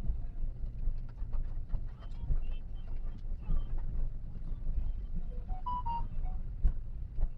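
Toyota Calya driving, with a steady low rumble from the engine and road, dotted with light ticks. Near the end there are a few brief high tones.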